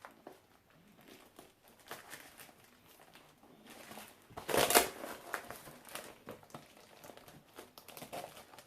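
Plastic packaging crinkling and rustling as a parcel is unwrapped, in scattered small crackles with one louder burst of crinkling about halfway through.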